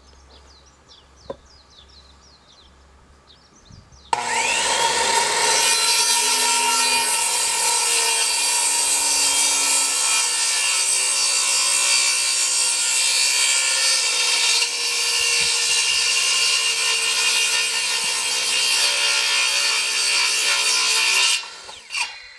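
Makita corded circular saw switched on about four seconds in and cutting crosswise through a thick wooden board: a steady high whine over the noise of the blade in the wood. Near the end it is switched off and winds down with a falling pitch.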